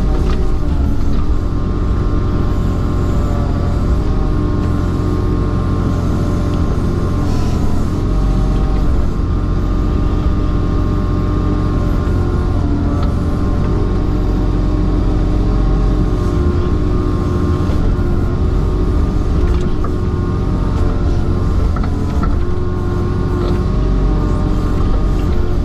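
Diesel engine of a CASE CX26C mini excavator running steadily, heard from inside the cab, with a low rumble and a whine whose pitch shifts a little now and then as the machine works.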